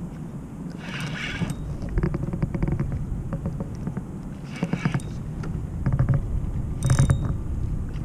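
Spinning reel being cranked while fighting a hooked fish, its gears whirring and clicking, with three short louder bursts.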